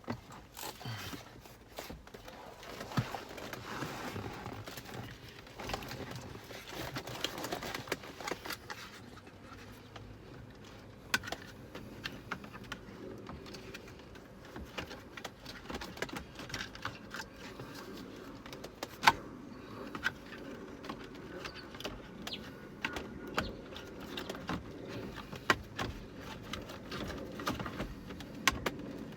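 Irregular plastic and metal clicks, knocks and rattles of a car's cabin blower motor being handled and fitted back into its housing, with a few sharper knocks scattered through. The motor itself is not running.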